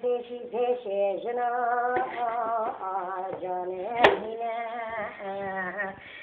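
A voice singing a slow melody in long, wavering held notes. There is a sharp click about four seconds in.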